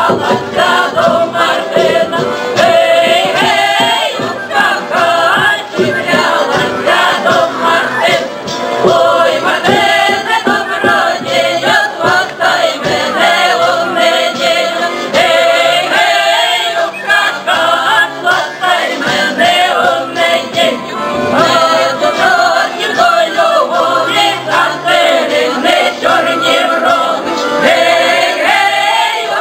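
Ukrainian folk choir, mostly women's voices with a few men, singing a comic folk song in harmony.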